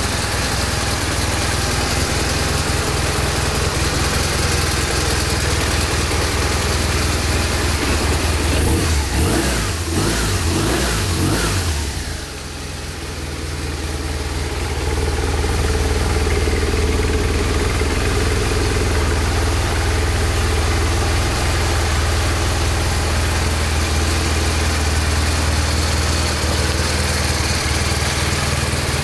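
BMW R1200RT's boxer flat-twin engine idling steadily, with a brief unsteady stretch about a third of the way in before it settles back to an even idle.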